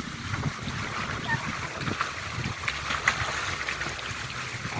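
Sea water sloshing and splashing, with faint voices in the background.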